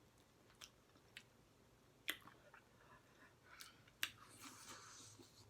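Faint chewing and mouth clicks from someone eating fried chicken legs, with a few sharp smacks, the loudest about two and four seconds in.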